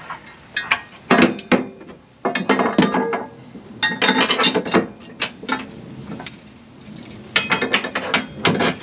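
Hand ratchet wrench clicking in about four quick bursts with pauses between, as bolts on a gooseneck hitch bracket are tightened.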